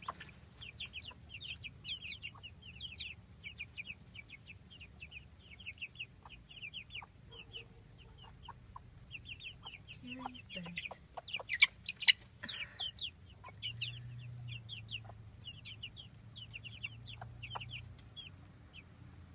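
Chicks peeping continuously, a fast run of short, high cheeps several a second, with a hen's occasional low cluck among them. A couple of sharp knocks about halfway through are the loudest sounds.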